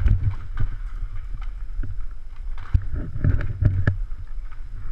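Someone climbing a steel ladder with the camera on their body: irregular low thumps and knocks of hands and boots on the rungs, with clothing rustling against the microphone.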